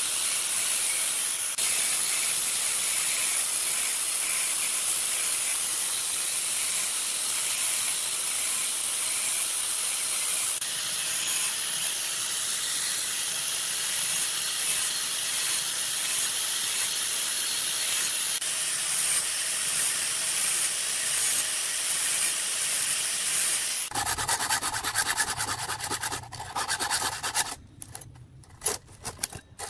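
Angle grinder with a thin abrasive disc grinding the cutter teeth of a chainsaw chain: a steady high hiss. About 24 seconds in, it gives way to a round chainsaw file rasping across the chain teeth in hand strokes with short pauses.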